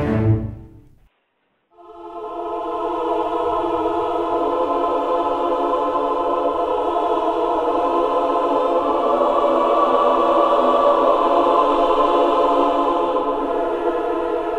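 Music soundtrack: after about a second and a half of silence, a choir comes in on one long held chord that slowly swells.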